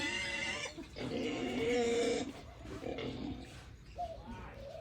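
Pigs squealing in a run of long, pitched calls that rise and glide, two strong ones in the first two seconds and softer ones after. It is the noise pigs make while waiting to be fed.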